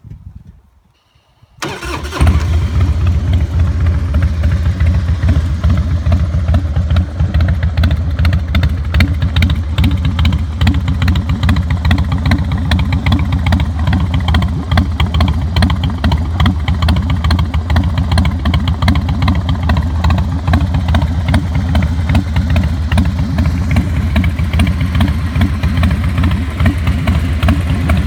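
Harley-Davidson Softail Deuce V-twin starting about two seconds in, then idling steadily. It runs through Vance & Hines Big Shots pipes with quiet baffles, which give a loud, deep exhaust note.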